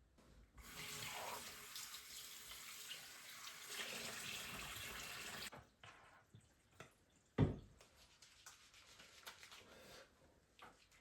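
Water running from a tap for about five seconds, starting and stopping sharply. A single thump follows about seven seconds in, with a few faint clicks.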